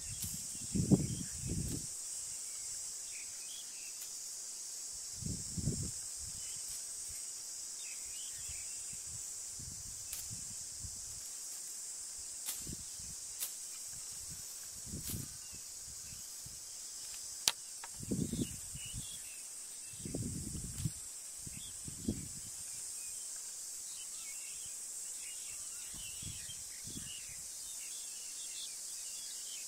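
A steady, high insect drone over outdoor ambience, with a few faint chirps and scattered low thumps.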